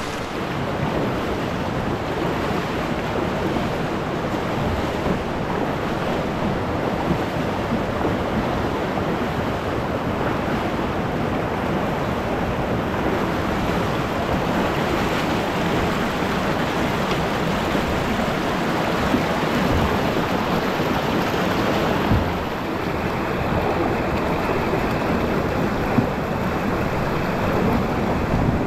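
River rapids rushing steadily around a canoe being waded and dragged upstream through the current, with a few short knocks.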